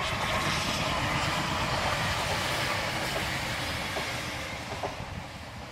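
A passenger diesel multiple unit running past on the track, its engine and wheel-on-rail noise at full strength for the first few seconds, then slowly fading away.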